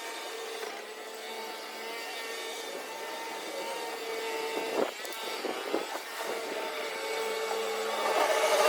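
A small electric motor whirring steadily, with a few brief knocks about five to six seconds in.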